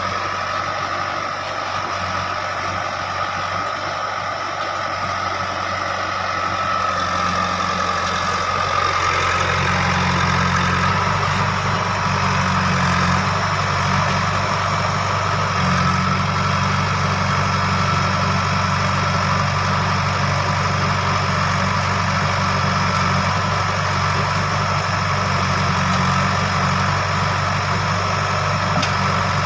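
JCB 3DX backhoe loader's diesel engine running steadily while it works, growing louder about eight seconds in and then holding at the higher level.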